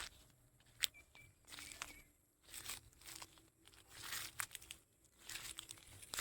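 Goat tearing at and chewing plants: irregular crunching and ripping.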